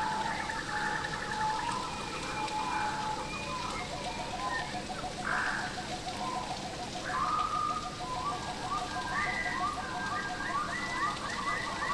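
Steady rain falling in a rainforest while several birds call and sing over it. Through the middle runs a line of quick, evenly repeated low notes, and near the end one bird repeats a series of short sliding whistles.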